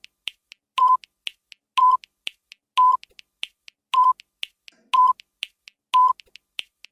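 Quiz countdown timer sound effect ticking down: a short beep about once a second, with quick clicking ticks between the beeps, about four a second in all.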